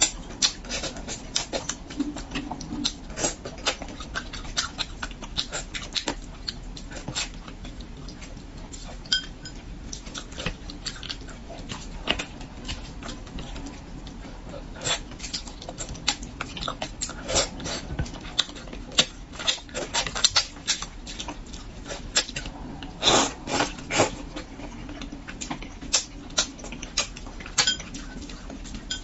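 Close-miked eating of spicy braised carp: wet lip smacks, sucking and chewing as fish flesh is picked off the bones, with many small irregular clicks and a few louder slurps.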